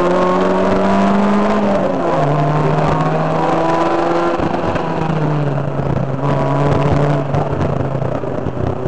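Rally car engine pulling hard through the gears: its pitch climbs steadily and drops sharply at upshifts about two and five seconds in, with scattered sharp clicks and knocks over it.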